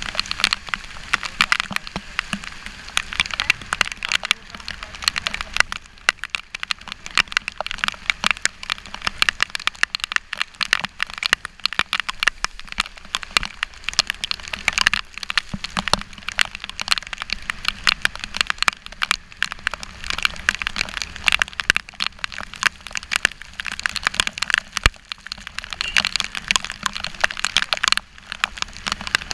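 Rain striking an action camera's housing on a moving motorcycle: a dense, irregular crackle of sharp drop hits, with a low steady rumble underneath.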